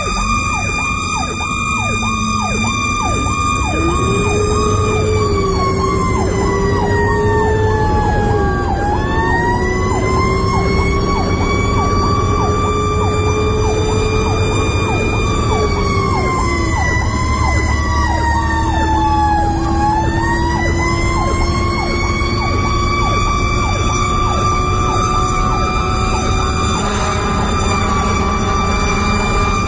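Fire rescue truck's siren heard from inside the cab while under way. A fast yelp repeats about three times a second throughout, over a sustained wail that sinks in pitch and climbs back up twice, about a third and two-thirds of the way in. Engine and road noise run beneath.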